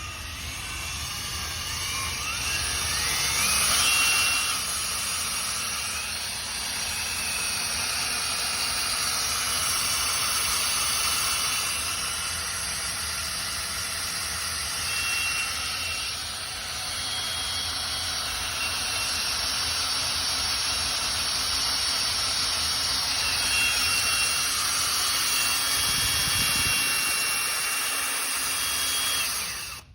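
A 2x72 belt grinder driven by a hand-held electric drill: the drill whines up to speed in the first few seconds, then the drill and the running abrasive belt make a steady whine and a loud hiss, which stops abruptly at the end.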